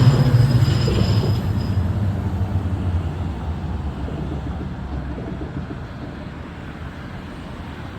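A freight train rolling past and receding, its low rumble dying away steadily over several seconds, with a thin high wheel squeal in the first two seconds.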